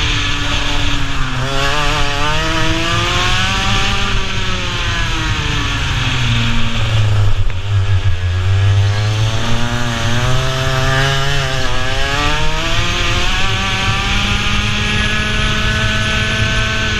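Racing kart engine at full race pace, heard on board, its revs climbing and falling several times as the kart accelerates and slows. The revs dip lowest about halfway through, then climb and hold high near the end.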